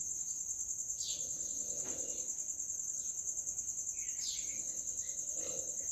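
Cricket chirping in a fast, even, high-pitched pulse, with a few faint squeaks of a marker writing on a whiteboard.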